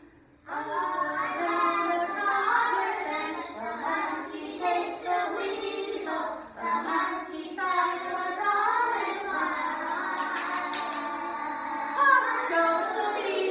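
A class of young children singing a song together in unison, starting about half a second in.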